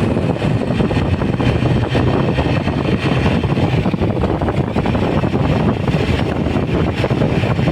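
Loud, steady rumble of a moving vehicle with wind noise on the phone's microphone.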